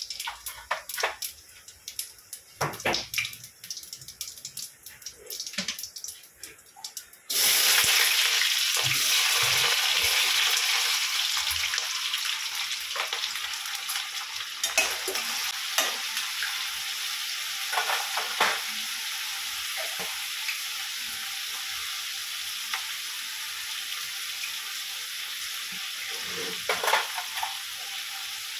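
Light clicks and taps of steel utensils, then about seven seconds in a sudden loud sizzle as diced potatoes go into hot oil in a steel kadai. The frying carries on, slowly easing, with a few knocks of a spoon stirring in the pan.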